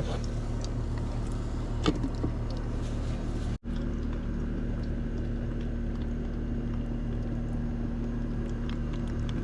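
A steady low motor drone, like an engine running, broken off briefly about three and a half seconds in before going on unchanged, with a few faint clicks.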